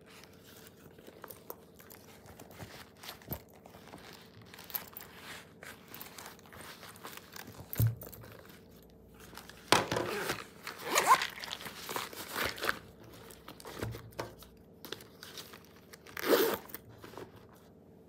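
Rustling, crinkling and soft knocks from hands packing fabric zip pouches into a pleated leather pouch bag, with a louder stretch of rustling about halfway through and another short burst near the end.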